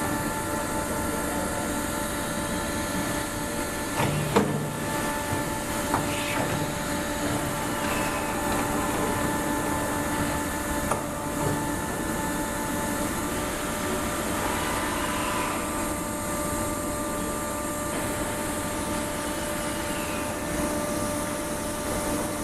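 Steady hum and whine of running industrial machinery, holding several constant tones over a noisy background, with a few sharp knocks about four, six and eleven seconds in.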